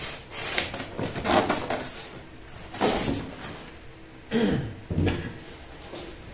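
Polystyrene foam packing insert being pulled out of a cardboard box: several bursts of scraping and rustling as foam rubs on cardboard, with a short squeak about four and a half seconds in.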